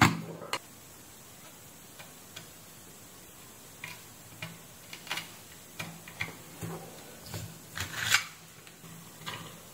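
Soldering iron tip scraping and tapping on a circuit board: scattered light clicks and short scrapes at irregular intervals, the loudest a brief scrape near the end.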